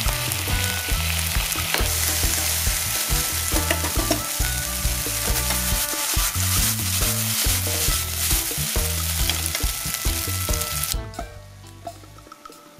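Fried rice sizzling in a hot nonstick frying pan with soy sauce just splashed in, stirred and tossed, with small scraping clicks. The sizzle cuts off suddenly about eleven seconds in.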